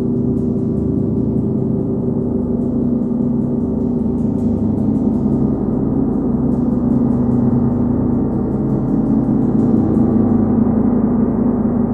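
A 39-inch Nepalese wind gong sounding in a sustained, dense wash of many overlapping tones, kept going by a self-made hard rubber ball mallet.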